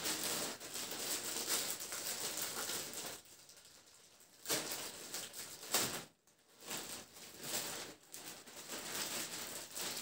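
Thin clear plastic packaging bag crinkling and rustling as it is handled and pulled open, in irregular bursts with a quieter stretch about three to four seconds in.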